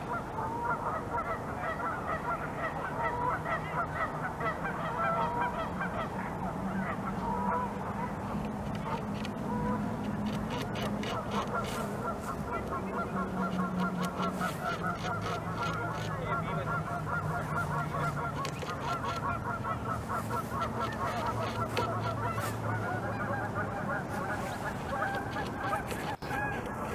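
Geese honking continually, many calls overlapping. Under them come clusters of sharp clicks and scrapes from a beaver's incisors gnawing through the wood of a branch.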